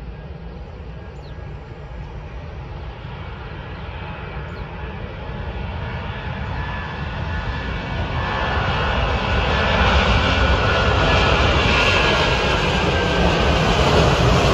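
Jet engines of a Sichuan Airlines Airbus A330 at takeoff power during the takeoff roll: a steady rushing noise that grows steadily louder as the airliner comes closer and lifts off near the end.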